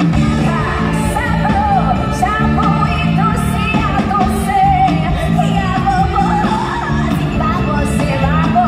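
Stage show music with a singer's voice sliding and wavering in pitch over a steady, repeating bass line, played over a theatre's sound system.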